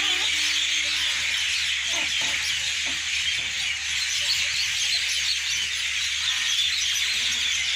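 A dense chorus of many small birds chirping at once, a steady, unbroken chatter of short high calls: flocking birds settling in to their nests at dusk.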